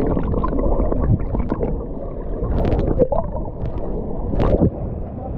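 Muffled, churning water with gurgles and scattered splashes, heard close up in a swimming pool under a waterfall.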